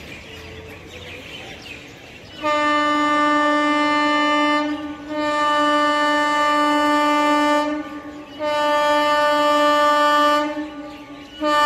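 EMU local train horn sounding as the train approaches: three long blasts of one steady tone, each about two to two and a half seconds, the first starting about two and a half seconds in. A fourth blast starts near the end.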